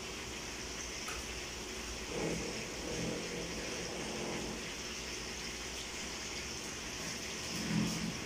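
Hot cooking oil sizzling steadily in a pot as fish fries, with a few soft low sounds about two seconds in and near the end.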